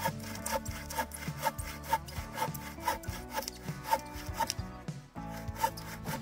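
Hand saw cutting through a wooden log in steady back-and-forth strokes, about two a second, with a short pause about five seconds in.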